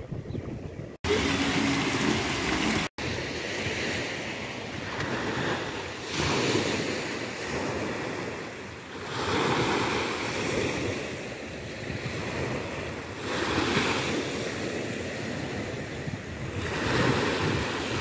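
Small Black Sea waves breaking and washing up on a sandy shore, swelling every three to four seconds, with wind on the microphone. The sound cuts out briefly twice in the first three seconds.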